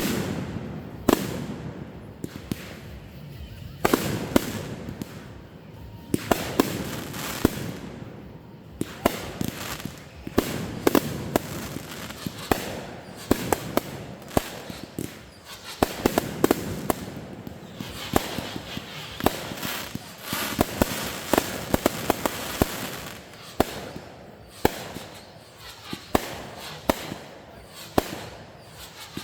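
Fireworks going off in a rapid series: repeated sharp bangs of bursting shells with crackling in between, the crackle densest about two-thirds of the way in.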